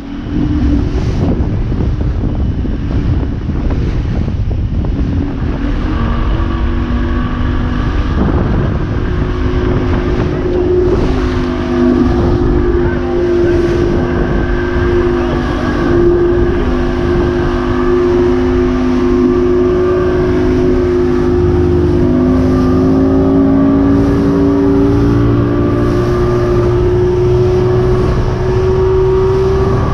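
Mercury outboard motor running at high speed, its pitch creeping up in the second half, over the rush of spray and wind as the boat's hull slaps through choppy waves.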